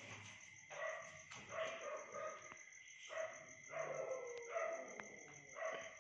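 A dog barking repeatedly, about one short bark a second.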